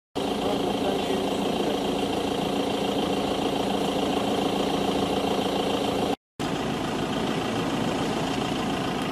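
Engine idling with a steady, unchanging low hum. The sound cuts out briefly twice, right at the start and again about six seconds in.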